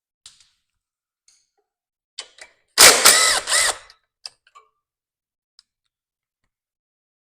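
Cordless power drill/driver run in two short pulls of the trigger, its motor whine rising and falling, to spin fasteners off the engine, with a few light clicks of metal parts before and after.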